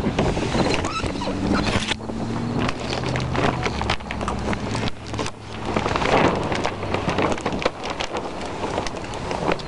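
Hoop house's white plastic cover sheeting rustling and crinkling as it is handled and rolled back.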